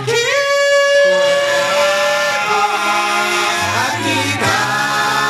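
A male vocal group singing in close harmony into microphones. The voices slide up into a chord held for about two seconds, then move on through further chords over a low bass part.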